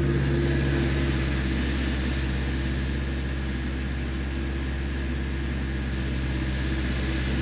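Gehl skid steer's diesel engine running steadily under load while it works snow with a snow pusher.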